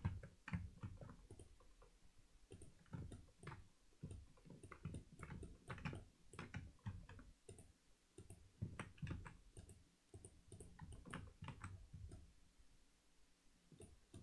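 Faint, irregular clicking of a computer mouse and keyboard.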